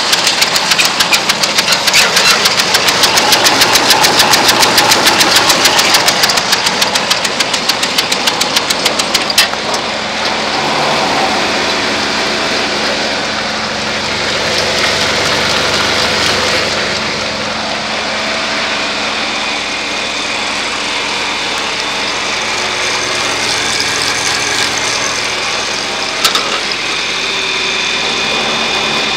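An engine running steadily, with a fast clattering rattle over it that stops abruptly about nine seconds in.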